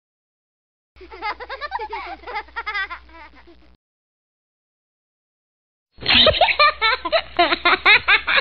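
Laughter in two bursts of high, rapidly wavering giggles, each about three seconds long and separated by silence; the second burst, starting about six seconds in, is louder.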